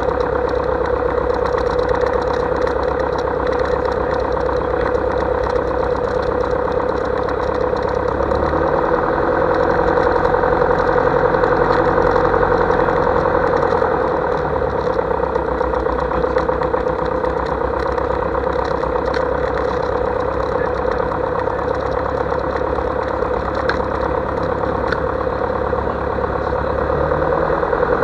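Light aircraft's piston engine idling with the propeller turning, heard close up from the engine cowling: a steady, even drone that grows a little louder for a few seconds about a third of the way in.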